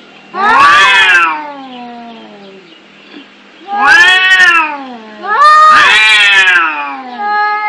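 Domestic cats fighting: three loud, drawn-out yowls that rise and then fall in pitch, about a second in, near four seconds and near five and a half seconds. Each trails off into a lower, falling moan.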